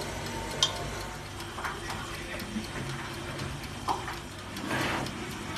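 Electric countertop oven being opened: a couple of sharp light clicks and a soft rustling swell over a low steady hum.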